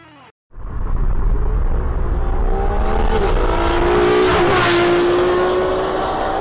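Ferrari 599 GTO's 6-litre V12 accelerating hard, its pitch climbing, then dropping sharply at a gear change about four and a half seconds in before it starts pulling again. The engine sound comes in suddenly after half a second of silence.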